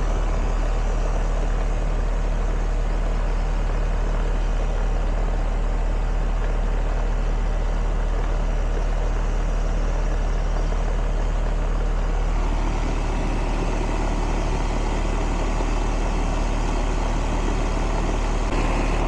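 Central air conditioner's outdoor condensing unit running steadily, compressor humming under the condenser fan, while it is slowly charged with refrigerant after a leak repair and still reads low on charge.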